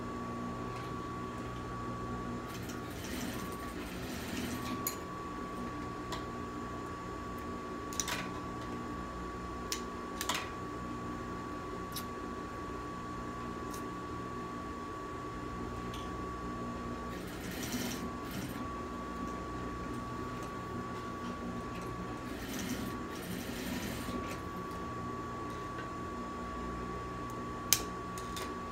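Industrial sewing machine: a steady motor hum with a thin whine, broken by three short runs of stitching, and a few sharp clicks, the loudest near the end.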